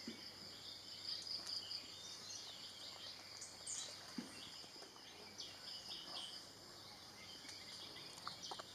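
Tropical forest ambience: a steady, high-pitched insect drone with short bird chirps scattered through it.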